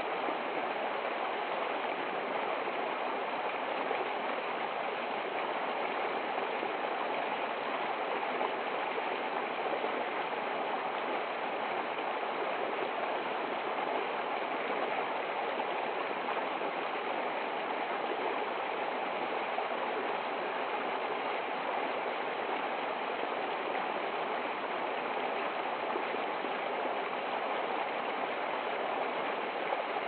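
Small stream running steadily down a short cascade over ice-crusted rocks, an even splashing rush of water.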